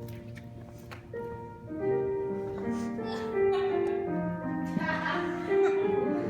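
Background music: a slow melody of held notes over sustained chords.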